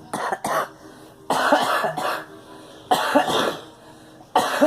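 A girl coughing in fits: two quick coughs, then three longer coughing bouts about a second and a half apart.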